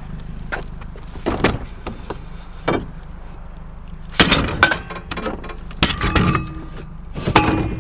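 A heavy chunk of scrap metal being wrestled into a car trunk: a few softer knocks, then three loud bursts of clanking with ringing metal, about four, six and seven and a half seconds in.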